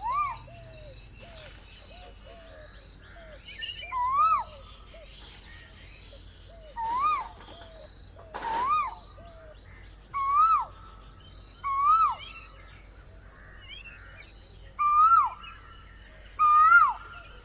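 Asian koel calling: a clear note that rises and then falls, repeated eight times at irregular gaps of about one and a half to three seconds. Fainter small chirps from other birds come in the first few seconds.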